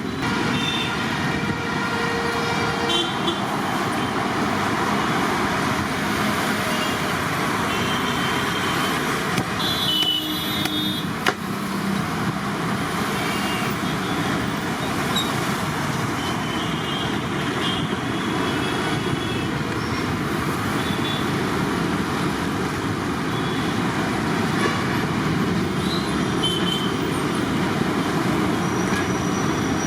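Steady road-traffic noise with short vehicle-horn toots now and then, the clearest about ten seconds in, and one sharp knock a little after.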